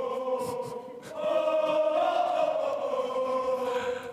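A group of voices chanting in unison, holding long sung notes that swell about a second in.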